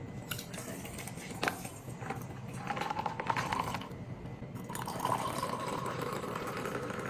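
Liquid being poured in two pours of a couple of seconds each, after a few light clinks.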